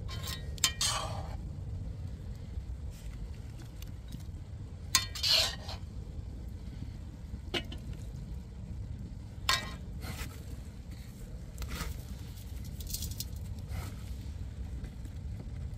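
Metal tongs clinking and scraping against a pot now and then as pieces of rabbit and onion rings are turned, about eight sharp clinks spread out, the loudest pair about five seconds in, over a steady low rumble.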